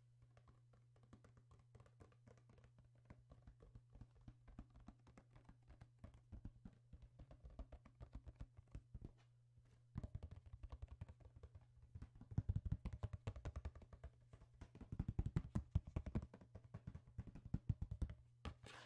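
White stone pestle working in a stone mortar: a rapid run of small clicks and knocks, sparse at first and coming in louder clustered bursts in the second half, over a low steady hum.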